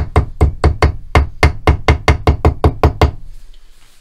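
Claw hammer striking a piece of steel paperclip wire clamped in a bench vise, bending its ends over. The blows come quickly and evenly, about five a second, and stop about three seconds in.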